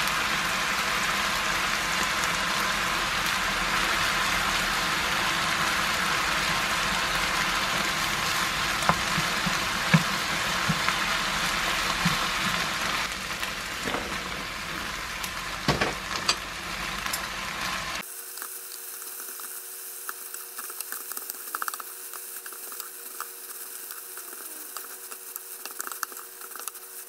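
Stir-fry of glass noodles, mushrooms and meat sizzling steadily in a frying pan, with a few sharp clicks of the stirring utensil against the pan. About two-thirds through, it cuts abruptly to a quieter, thinner sizzle with light ticks as the chives are stirred in.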